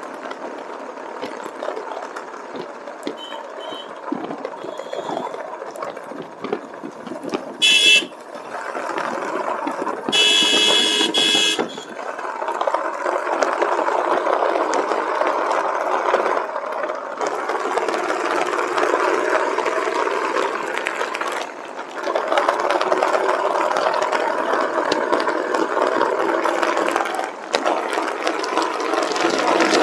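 Motorcycle riding noise, a steady rush of wind and engine, with a short vehicle horn beep about eight seconds in and a longer horn blast about two seconds later.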